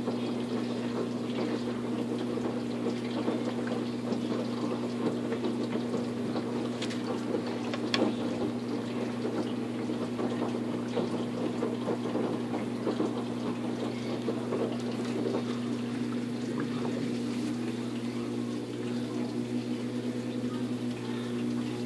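Waveforce 14 kg top-loading washing machine on its jeans cycle: a steady motor hum under foamy water sloshing as the drum churns the load. Near the end the motor's note changes as the drum starts spinning fast.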